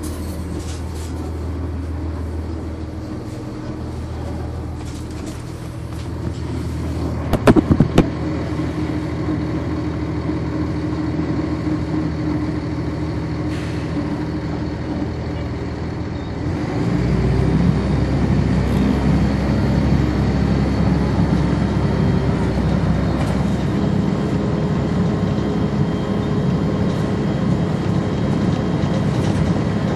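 Cummins ISC diesel engine of a 1999 Nova Bus RTS, heard from on board, running steadily in slow traffic. A few sharp knocks come in quick succession about seven seconds in. From about 17 seconds in the engine runs louder and fuller as it takes up load.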